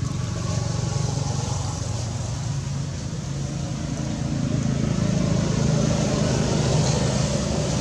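A motor vehicle engine running steadily, growing louder about halfway through.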